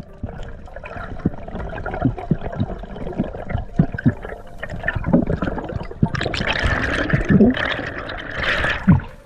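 Underwater water noise around a diving camera: sloshing and gurgling with scattered knocks, building to a louder rush of bubbles from about six seconds in.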